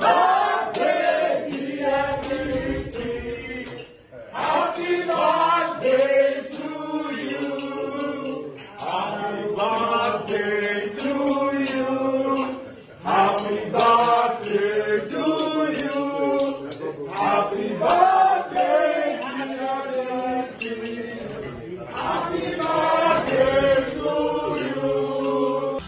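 A group of people singing together in a chant-like song, in phrases with short breaks, over sharp, regular beats.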